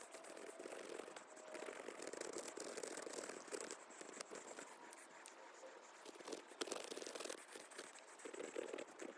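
Dry split stick being rasped against a small metal grater, a continuous run of short scratchy strokes shaving off wood chips.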